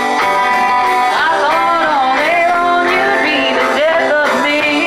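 Live band music: electric guitars and bass playing, with a woman singing the melody over them.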